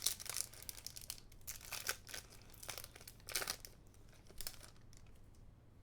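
Crinkling and rustling of trading cards and a foil booster-pack wrapper being handled, in about five short bursts that stop about four and a half seconds in.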